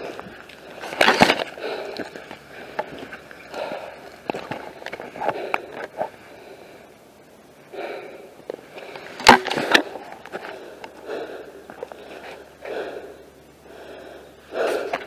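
Footsteps crunching through dry leaf litter at a walking pace, with a few sharper cracks, the loudest about a second in and about nine seconds in.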